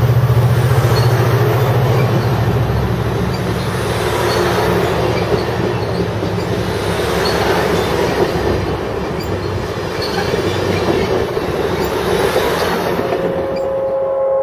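Amtrak Pacific Surfliner bilevel passenger cars rolling past: a steady rumble of steel wheels on rail with scattered clicks. A low drone fades over the first few seconds.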